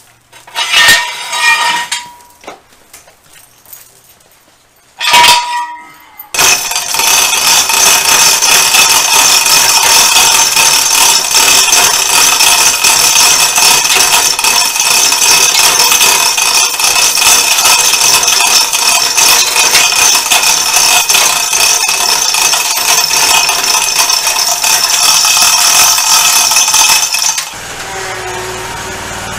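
Chains clinking twice, then a hoist running loudly and steadily for about twenty seconds as it lowers a Scag Tiger Cat zero-turn mower hanging on chains. The noise stops abruptly near the end and gives way to a quieter, low engine sound.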